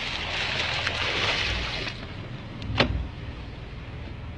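Small fishing boat at sea: a noisy rush of water and wind for about two seconds over a low, steady rumble, then one sharp knock near the middle, after which it goes quieter.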